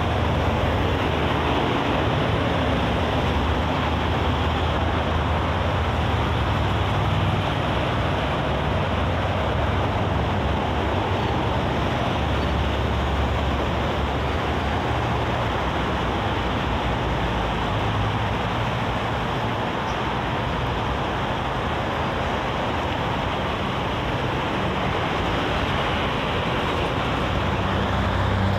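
Steady road traffic on a busy multi-lane highway: a continuous wash of tyre and engine noise from passing cars, buses and trucks, with low engine hum rising and falling as heavy vehicles go by.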